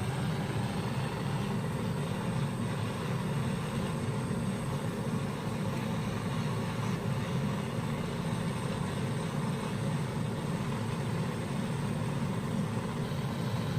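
A steady low mechanical hum that holds even throughout.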